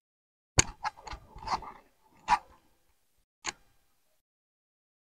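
A handful of short, sharp taps and clicks at irregular intervals, about six in all, with quiet between them.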